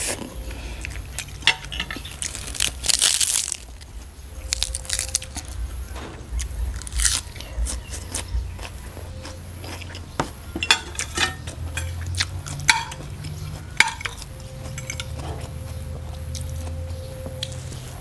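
Close-up eating sounds: chewing mouthfuls of rice vermicelli, with scattered sharp clinks and scrapes of a metal fork against a ceramic plate.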